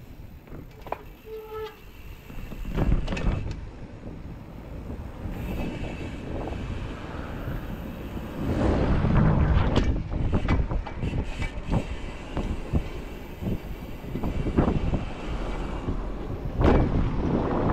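Riding noise from bicycles on a city street: a low rumble with irregular knocks and rattles, louder from about halfway through.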